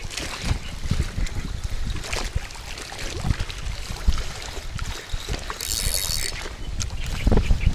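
Gusty wind rumbling on the microphone over small waves lapping at the shore. A brief high hiss comes in about six seconds in.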